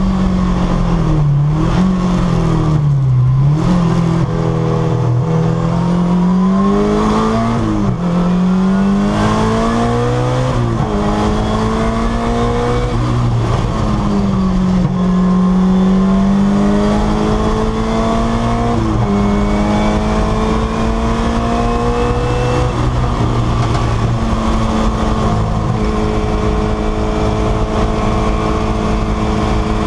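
Peugeot 205 T16 Group B's mid-mounted turbocharged four-cylinder engine, heard from inside the cockpit. It is driven hard, its pitch climbing and then dropping sharply about five times as the gears are changed, and it holds a steadier, slowly falling note near the end.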